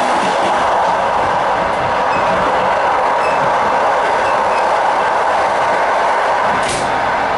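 Passenger train running at speed, heard from on board: a steady rush of wheels on rail with a clickety-clack, and one sharp click near the end.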